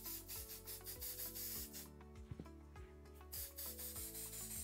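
Aerosol silicone spray hissing from the can onto a silicone mold in two bursts: the first stops about two seconds in, and the second starts a little over a second later. Background music with a steady beat plays underneath.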